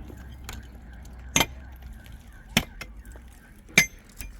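Three sharp, evenly spaced strikes of a hand tool on a hard surface, about one every 1.2 seconds, each with a slight metallic ring, typical of building work.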